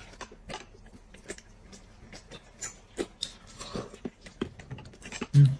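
Close-up eating noises: chewing and smacking on braised chicken eaten by hand, and slurping of soup from a glass cup, with scattered small clicks. A short hummed 'mm' near the end.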